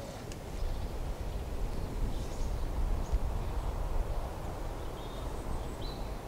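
Outdoor woodland ambience: a steady low rumble, typical of wind on the microphone, with a few faint, short bird calls.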